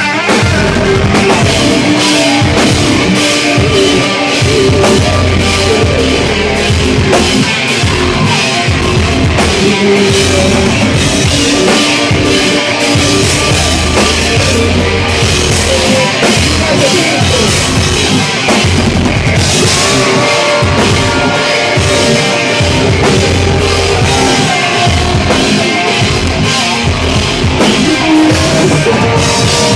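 Live progressive metal band playing loudly: distorted electric guitars and bass over a driving drum kit, with a singer's vocals. Recorded close to the stage, so the mix is dense and harsh.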